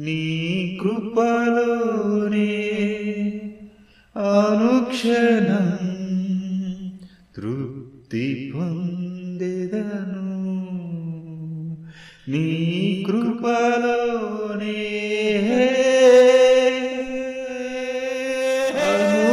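A voice singing a slow devotional song in long held notes, phrase by phrase, with short breaks between phrases.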